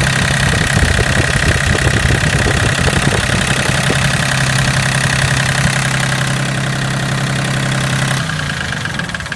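John Deere 770 compact tractor's three-cylinder diesel engine idling steadily, heard up close over the open engine bay. About eight seconds in it shuts off and runs down to a stop.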